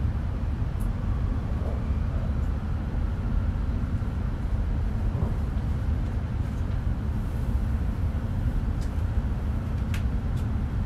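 Cabin noise of an E5 series Shinkansen running, heard from inside the passenger car: a steady low rumble, with a few faint ticks near the end.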